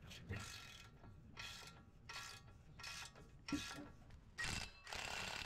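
Hand ratchet with a short socket clicking in repeated short strokes, about seven, as it backs out one of the 19 mm bolts holding the wheel bearing hub to the knuckle.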